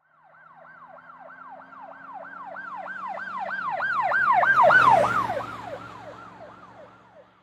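Emergency vehicle siren in a fast yelp, about three falling sweeps a second, passing by: it grows louder to a peak a little past the middle, its pitch drops as it goes by, and then it fades away.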